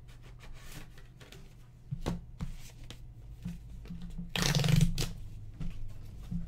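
Hands handling paper card envelopes and trading cards: scattered light rustles and clicks, with one louder rustling scrape about four and a half seconds in.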